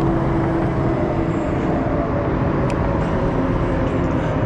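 Steady wind and road rumble on a helmet or handlebar action camera's microphone while riding an electric scooter, with a faint click a little past halfway.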